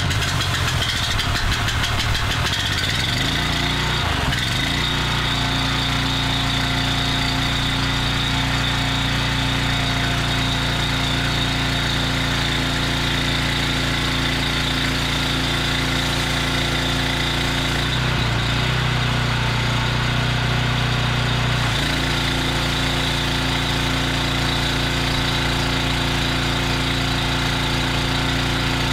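Honda GX390 single-cylinder four-stroke engine running a pressure washer's triplex plunger pump at steady speed. Its note changes briefly about four seconds in, and again for a few seconds past the middle, as the pump load shifts between trigger pulled and unloader bypass.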